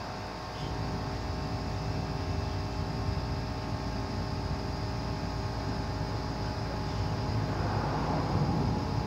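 Steady low background rumble with a faint hum of several steady tones, slightly louder near the end; no tool strikes or ratcheting stand out.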